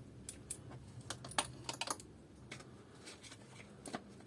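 Scattered light clicks and taps of small hand tools being handled, most of them in the first two seconds.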